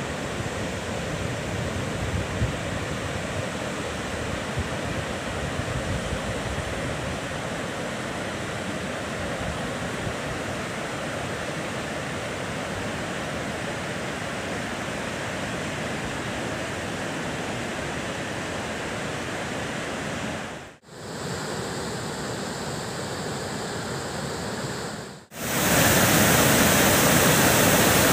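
Floodwater rushing over a waterfall and weir, a steady noise of churning white water. It cuts out twice for a moment near the end, and the last few seconds, close to the falling water, are louder.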